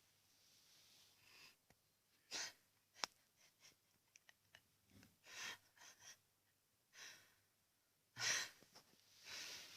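A sleeping pet snoring softly: a noisy breath every one to three seconds, with a few faint clicks between them.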